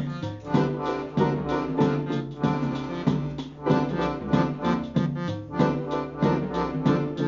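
Live instrumental music: accordions and keyboard playing sustained chords and melody over sequenced electronic beats with a steady pulse.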